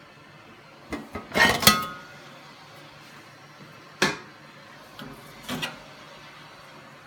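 Hard kitchenware being handled and set down. A clatter with a brief ringing clink comes about a second in, a sharp clack about four seconds in, and a couple of lighter clacks near the end, over a steady low hum.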